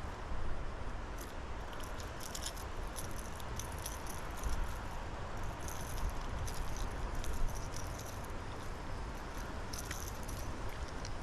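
Light metallic clicking and jingling, on and off throughout, over a steady outdoor hiss: fishing tackle being handled.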